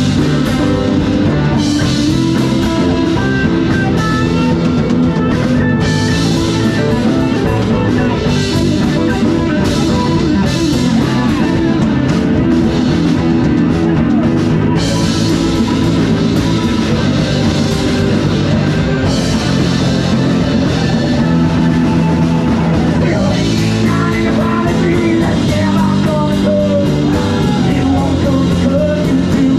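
Live rock band playing: electric guitars, bass and drum kit, with an acoustic guitar, amplified through a bar PA.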